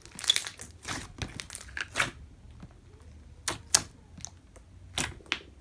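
Thick slime being squeezed and pulled by hand, giving irregular sharp clicks and pops, thickest in the first two seconds, then two short groups later.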